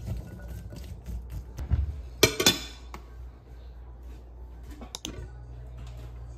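Wooden chopsticks tossing carrot sticks in a glass mixing bowl, clicking against the glass, with a louder clatter about two seconds in. About five seconds in, the glass bowl is set down with a single sharp knock.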